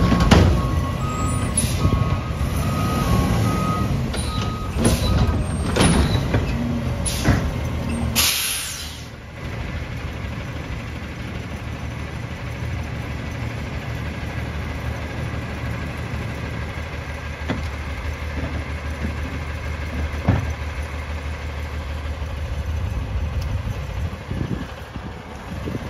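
Recycling truck's diesel engine running, with clanks and knocks from the automated cart arm and a run of evenly spaced warning beeps in the first few seconds. About eight seconds in there is a short hiss of released air, then the engine idles steadily.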